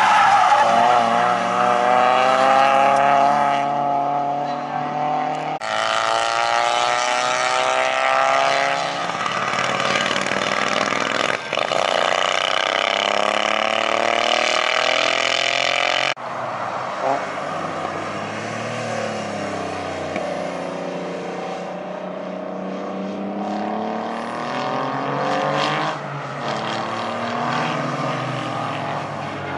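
Racing car engines passing along a circuit, their pitch falling and then rising again as they lift off and accelerate. The sound changes abruptly twice, about six and sixteen seconds in, as it cuts from one car to the next, and is a little quieter after the second change.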